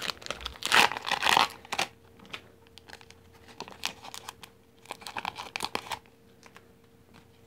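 Foil Pokémon booster pack torn open by hand with a loud rip about a second in, followed by softer crinkling of the wrapper and cards as the cards are pulled out, fading away near the end.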